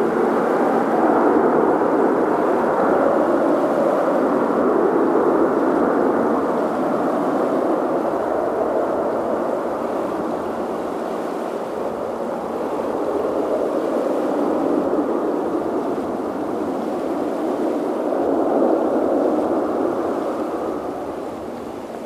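Boeing 737-800 jet engines (CFM56-7B) passing, a loud steady rush that swells and ebbs and starts to fade near the end.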